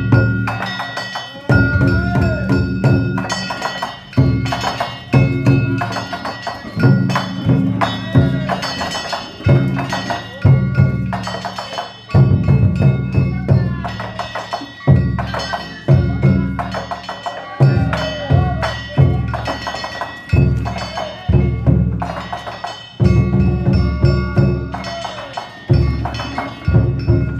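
Danjiri festival music (danjiri-bayashi): a big taiko drum struck in a repeating rhythm, with the clanging ring of small hand-held gongs (kane) over it.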